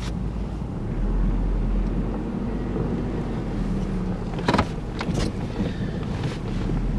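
Off-road vehicle's engine running in low gear, heard from inside its cabin as it crawls through deep snow and slush. The engine note gets louder about a second in, and there is a sharp knock about halfway through.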